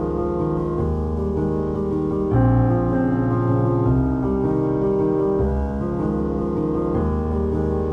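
Background music: slow piano chords held over a low bass, the chords changing every second or two and swelling a little about two and a half seconds in.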